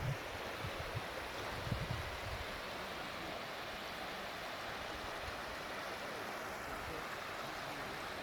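Steady rush of a fast-flowing mountain stream or waterfall. Wind rumbles on the microphone for the first couple of seconds.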